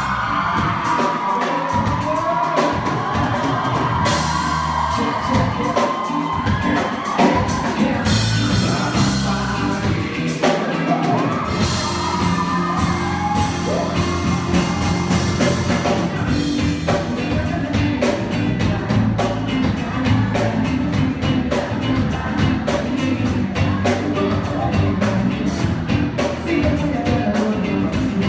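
Live pop band playing with a singer. The bass and drums come in fuller and steadier about twelve seconds in.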